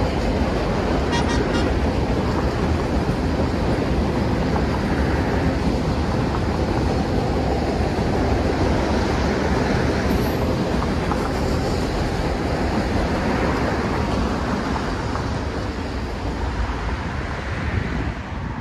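Train cars (passenger cars, then tank cars) rolling across an old steel truss bridge: a steady rumble of wheels on rail that fades away near the end.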